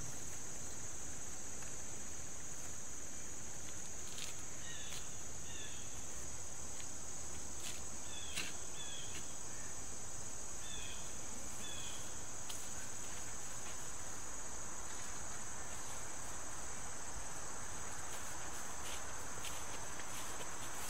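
Steady, high-pitched insect chorus, like crickets trilling in grass. A few short chirps sound in the first half, and there are scattered faint knocks and rustling toward the end.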